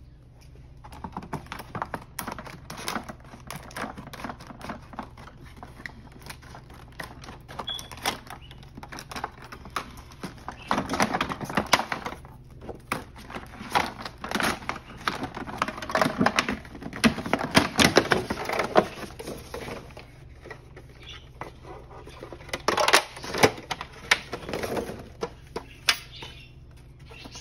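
Stiff clear plastic clamshell packaging being pried open and handled, along with the filter's plastic parts: irregular crackling and clicking of plastic that comes in busy spells about ten to nineteen seconds in and again around twenty-three seconds. A low steady hum runs underneath.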